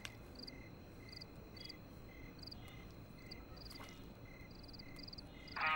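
Crickets chirping faintly: short, evenly spaced chirps a few times a second. Near the end, a song starts playing from a phone.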